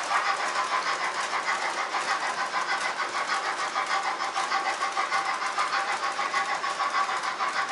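Trix Express model freight train running along the track behind its BR 56 locomotive: a steady whirring of the electric motor and the rolling metal wheels, with a fast, even rhythmic clatter of about six beats a second.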